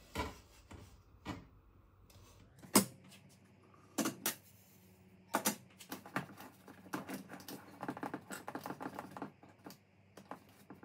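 Cookware being handled on a kitchen counter: a few sharp separate knocks, then a fast run of small clicks and taps.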